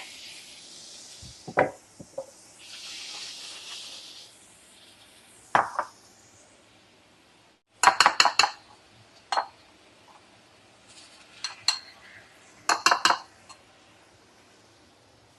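Diced beef sizzling as it starts cooking in a hot pan, with a hiss that fades out after a few seconds. Then a metal utensil clinks and scrapes against the pan in short clusters as the meat is stirred, the loudest clinks about eight and thirteen seconds in.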